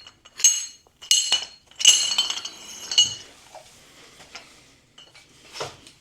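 A 7-pound folding claw anchor clinking as it is handled: a few sharp metallic clinks with a brief ringing in the first three seconds, then softer handling noise.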